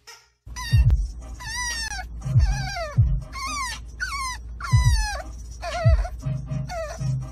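French bulldog puppy whining in a string of high, falling cries, more than one a second, over a low steady rumble.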